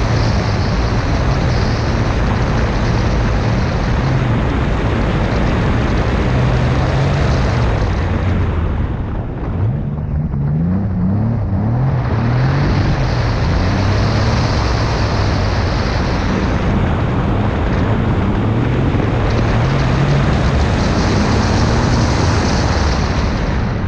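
Twin-turbo Nissan 350Z's V6 engine running hard under load through a true dual exhaust, with a loud rushing noise over the engine note. About nine seconds in the sound briefly dips, then the engine note climbs steeply as the car accelerates again.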